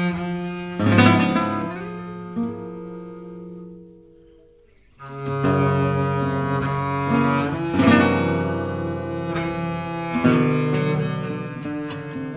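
Instrumental music led by bowed strings in a low register, playing long held notes. It fades almost away about four seconds in and swells back a second later.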